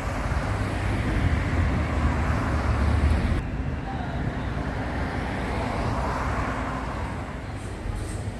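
A car driving past close by on a street, tyre and engine noise with a heavy low rumble, then quieter road traffic that swells and fades again.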